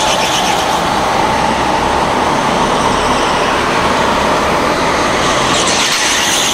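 Racing kart engines buzzing steadily as the karts lap an indoor track inside a large hall. One kart gets louder and brighter as it passes closer about six seconds in.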